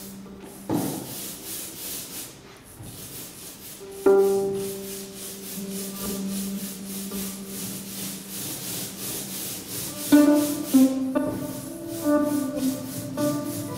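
Experimental live music: held low tones under a steady rubbing, scraping noise, with a few single plucked notes. From about ten seconds in comes a quick run of plucked string notes.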